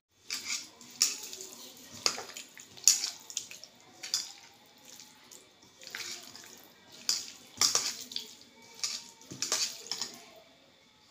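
A hand squishing raw boneless chicken pieces through a wet curd-and-spice marinade in a bowl: irregular wet squelches and slaps, one or two a second, that stop shortly before the end.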